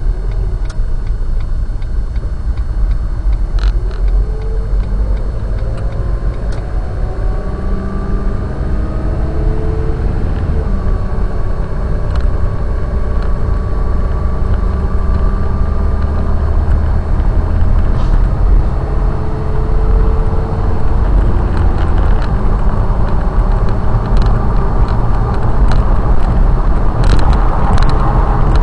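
Car driving, heard from inside the cabin: a steady low engine and road rumble, with the engine's pitch climbing slowly and dropping back several times as the car accelerates through the gears. A few sharp clicks come near the end.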